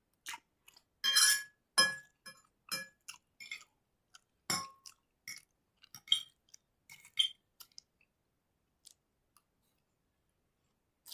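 Close-miked eating of chowmein noodles: chewing and mouth sounds mixed with sharp clinks of a utensil against a plate. The sounds come thick for about eight seconds, then only a few faint ones follow.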